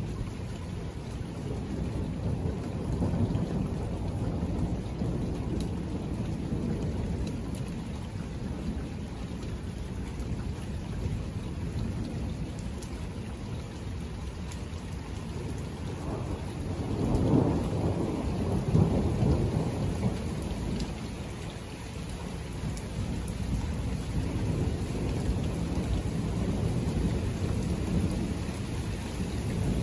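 Thunder rumbling low and continuously over steady rain, swelling loudest a little past the middle with two stronger peaks, then building again near the end.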